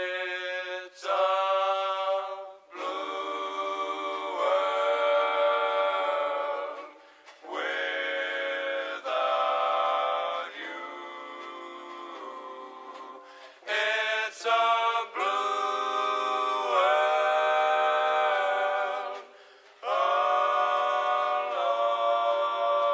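A cappella vocal music: voices singing long held phrases with short breaks between them, with no bass.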